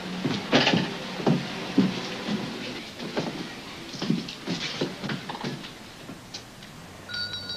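Irregular knocks and clatter of handling and movement in a small shop, with a short, high ringing tone about seven seconds in.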